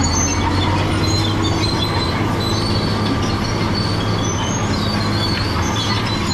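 Caterpillar D7G crawler bulldozer working, its diesel engine running steadily under a constant low hum while the steel tracks squeal and clank in short high bursts.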